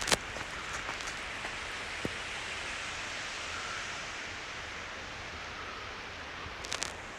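Steady rushing of a waterfall's falling water, an even hiss-like roar. A sharp click comes just after the start, and a few small clicks come near the end.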